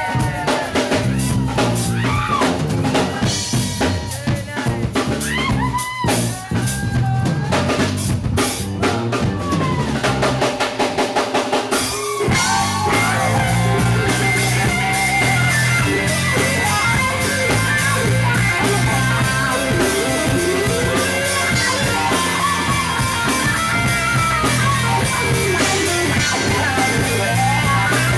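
Live rock band playing, drum kit and electric guitars together. A rapid run of drum hits comes about ten seconds in, and about twelve seconds in the full band comes in denser and steadier.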